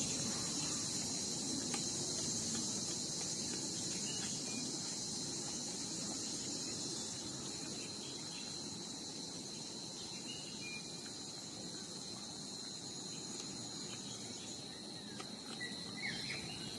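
Steady, high-pitched chorus of insects shrilling, with a low rumble beneath and a few faint short chirps.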